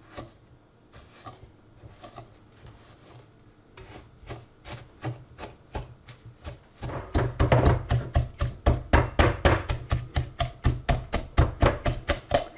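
Wire whisk beating softened butter and cane sugar in a glass bowl, the tines scraping and knocking against the glass. Slow, faint strokes at first, then from about halfway a fast, steady whisking rhythm of about five strokes a second.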